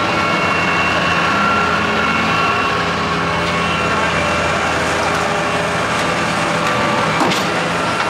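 Truck engine running steadily, a constant hum with a steady whine over it, and one sharp knock about seven seconds in.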